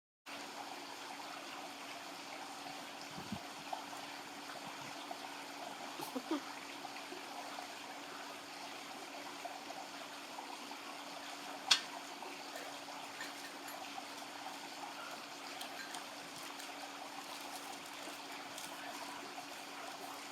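Steady background noise with a faint steady hum underneath and one sharp click about halfway through; the noise is like running water or plain room hiss.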